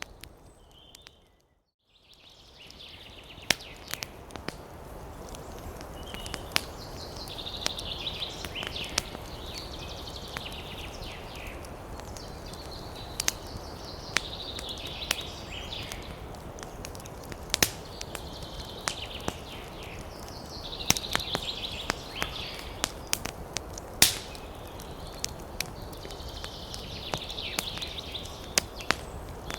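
Wood fire crackling, with irregular sharp pops over a steady bed of noise and a higher hiss that swells and fades every several seconds. The sound cuts out about a second in, then fades back in.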